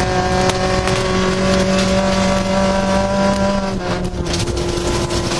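Rally car engine at high, steady revs, heard from inside the cabin over the rush of tyres on gravel. Its pitch drops a little about four seconds in.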